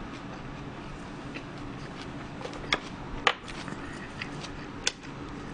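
Eating noises: a few sharp clicks and smacks, three of them loud in the second half, over a steady background hum.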